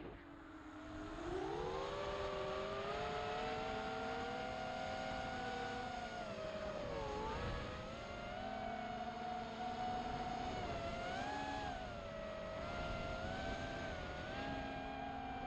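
XHOVER MXP200B racing quadcopter's brushless motors and propellers whining, several close pitches moving together with the throttle: climbing about a second in, dipping briefly near the middle, then wavering up and down.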